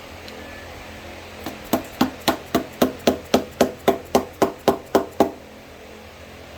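A hammer tapping metal in a quick, even run of about fifteen ringing blows, roughly four a second, stopping about five seconds in. The blows are working along the seam of a stuck engine oil pan to break its gasket seal.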